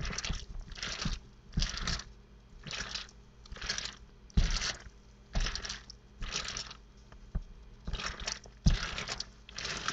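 A hand kneading raw ground pork and beef meatloaf mix in a stainless steel bowl: wet squishing, about once a second as the meat is squeezed and turned, with a few dull knocks against the bowl.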